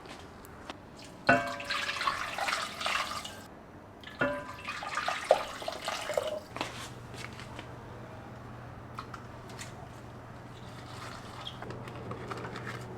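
Kitchen sink work: a tap run in two short spells, with knocks and clinks of dishes, then a steady low hum from about halfway through.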